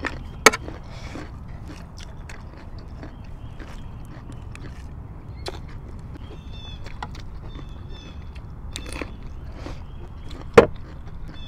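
Eating sounds: crisp bites into a raw cucumber and chewing. There are two sharp, loud cracks, one about half a second in and one near the end.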